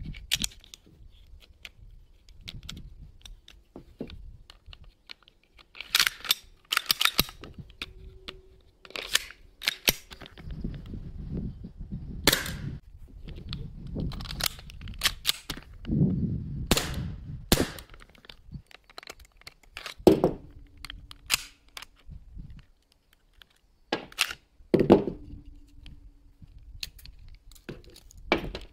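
Sharp clicks and clacks of CO2 BB pistols being field-stripped and reassembled by hand, as slides, springs and grip parts snap and slide into place. They come at irregular intervals, and a few are followed by a short faint ringing tone.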